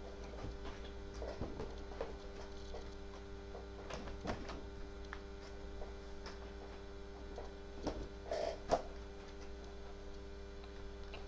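Steady low electrical hum picked up by a laptop's built-in microphone, with a few faint knocks and rustles from things being handled, the clearest about four seconds in and around eight seconds in.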